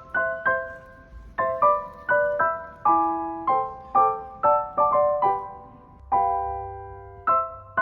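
Background music: a gentle piano melody of struck notes, a few per second, each fading, with a longer held chord about six seconds in.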